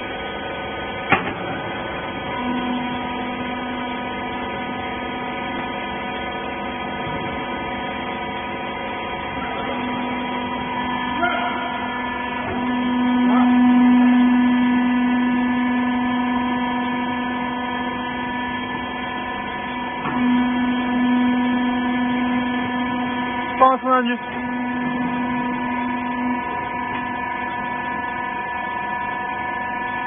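Small horizontal hydraulic rag baler running with a steady electric hum that holds several fixed tones. The hum swells louder for a few seconds in the middle and again later on. A few short knocks come about a second in and again near the end.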